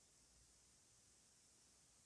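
Near silence: faint room tone, with no knife strokes to be heard.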